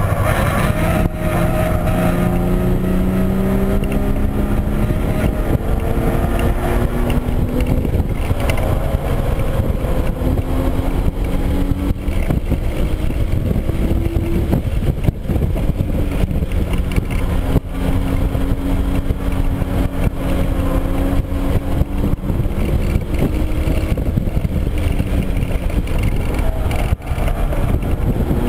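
Hyundai Genesis Coupe's 3.8-litre V6 heard from inside the cabin under hard acceleration, its pitch climbing and dropping back at gear changes, then easing off as the car slows near the end, over heavy wind and road noise.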